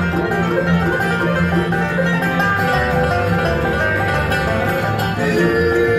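A bluegrass band playing live on banjo, fiddle, mandolin, acoustic guitar and upright bass, with the banjo prominent and the bass keeping a steady beat. About five seconds in, long held notes come in over the picking.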